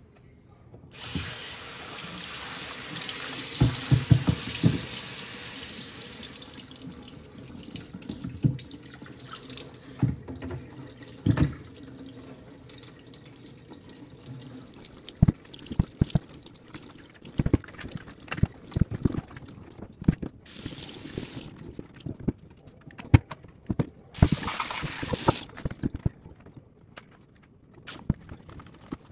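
Water running from a tap into a sink, with many knocks and clatter of hard items being handled under it. The tap runs for several seconds and fades out early, then comes on again in two short spells later.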